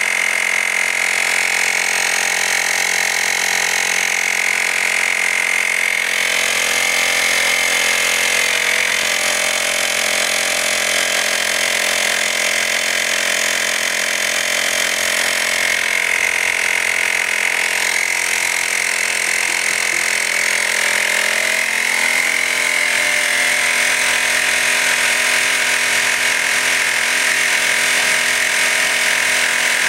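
Slime mini 12-volt electric tire inflator's compressor running steadily, pumping up a bicycle tire toward 45 psi: a constant motor drone with a steady high whine.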